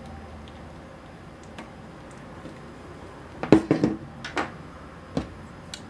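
Faint ticks of a small precision screwdriver working a screw into the plastic camera body, then a burst of sharp knocks and clatter about three and a half seconds in as the DSLR body is turned over and set down on the tabletop, with a few single knocks after.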